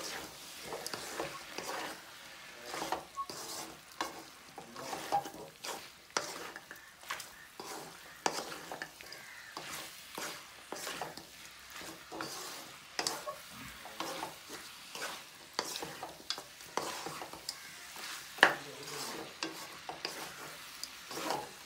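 Spatula stirring and scraping chicken pieces around a metal wok as they fry in oil with spice powder: irregular scrapes and knocks over a light sizzle, with one louder knock on the pan about 18 seconds in.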